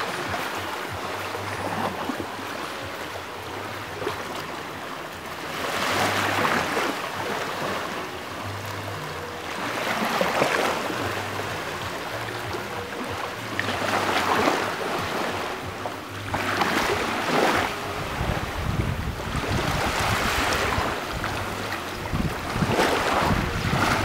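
Small waves breaking and washing over a pebble beach and rocks, a surge of surf every three to four seconds. From about three-quarters of the way in, wind rumbles on the microphone.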